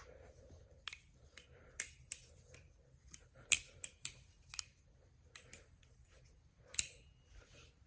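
Balisong (butterfly knife) clicking and clacking as it is flipped fast through a fan combo, its handles and blade knocking together in scattered sharp clicks, the loudest about three and a half seconds in and again near the end.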